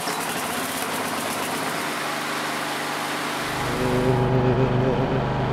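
Petrol walk-behind rotary lawn mower engine starting on a pull of the starter cord and running steadily. About three seconds in, the sound turns deeper and heavier, as picked up by a camera mounted on the vibrating mower.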